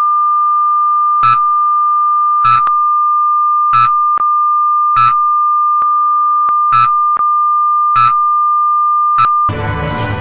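Broadcast test-card tone: a steady, loud, high-pitched beep broken by a short pip about once a second. About nine and a half seconds in, the tone gives way to station ident theme music.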